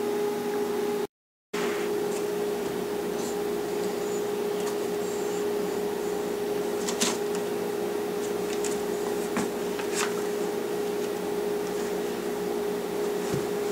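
A steady mechanical hum with one even tone, cut off completely for a moment about a second in, with a few faint clicks over it.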